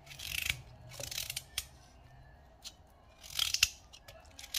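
Raw carrot being cut into thin slices: a few short, crisp cutting strokes with a quiet gap in the middle, and a sharp click or two.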